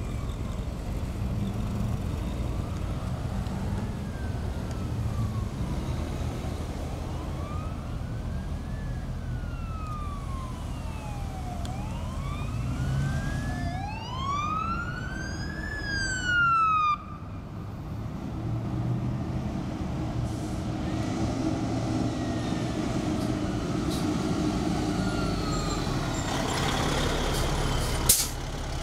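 Fire engine siren wailing in slow rising and falling sweeps, growing louder as it approaches, then cut off suddenly about 17 seconds in. The truck's engine rumbles on and grows louder as it pulls up close, with a brief sharp sound near the end.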